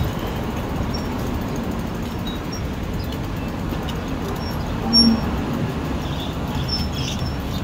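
Steady low rumble of vehicle and engine noise, with a brief louder sound about five seconds in.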